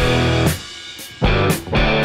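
Background rock music: distorted electric guitar chords with drum hits.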